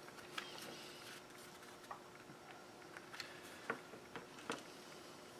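A few faint, scattered clicks and taps of small plastic parts being handled as a Dremel rotary tool's housing and hanging ring are fitted back together.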